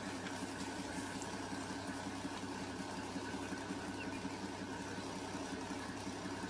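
Vehicle engine idling steadily, a low, even hum.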